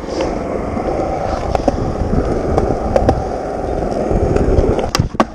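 Skateboard wheels rolling with a steady rumble, then near the end two sharp clacks a quarter second apart: the tail popping for a shove-it and the board landing.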